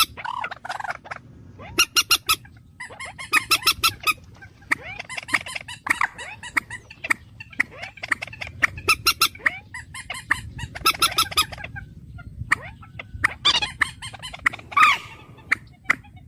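Bird calling over and over in runs of rapid, harsh, pulsed notes, each run lasting about half a second to a couple of seconds, with short gaps between.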